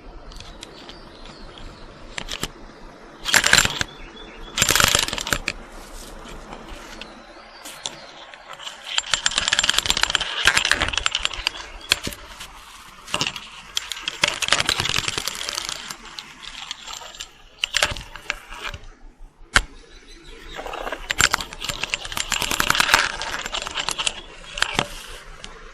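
Irregular bursts of metallic jangling and clattering with sharp clicks between them, part of a horror sound effect.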